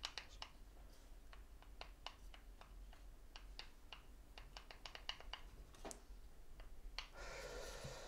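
Faint, irregular clicks and taps of hands handling a small wooden puzzle box as it is turned over and pressed, with a soft rustle near the end.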